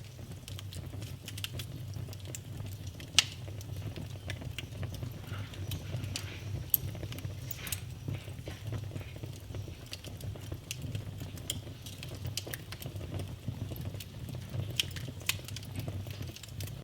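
Wood fire crackling in a fireplace: a steady low rumble of the flames with scattered sharp pops and snaps, two louder pops about 3 and 7 seconds in.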